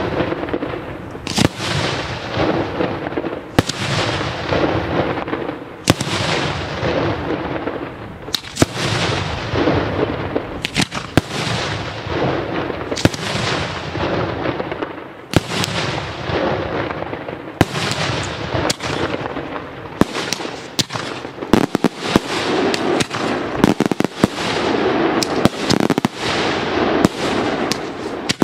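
Daytime aerial fireworks shells bursting with loud bangs, one about every two seconds, each trailing off in echo. After about twenty seconds the bangs come faster and closer together.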